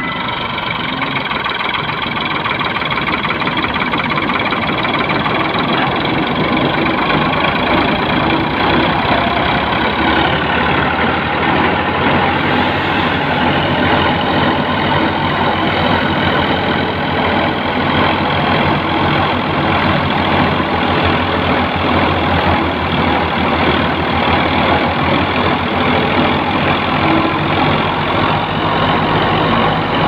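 Tractor-driven wheat thresher running steadily and loudly while wheat sheaves are fed into it, with the tractor engine working under the load.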